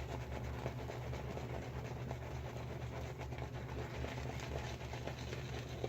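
Silvertip shaving brush being worked through wet shaving-soap lather in the palm: a fast, continuous run of wet, crackly swishing strokes over a low steady hum.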